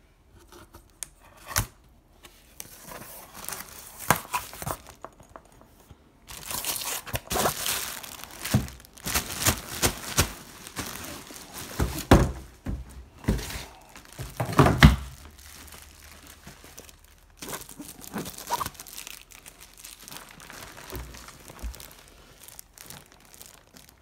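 A cardboard box being opened by hand and a plastic-wrapped product slid out of it: irregular crinkling of plastic wrap and rubbing and tearing of cardboard, with a few sharp knocks.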